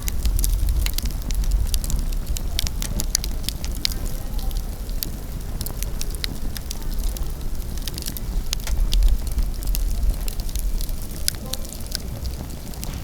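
Wood campfire crackling: many small sharp pops and snaps scattered irregularly, over a steady low rumble.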